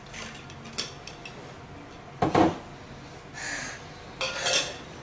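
Scattered clinks and knocks of metal water bottles being handled, with a louder, duller knock a little over two seconds in.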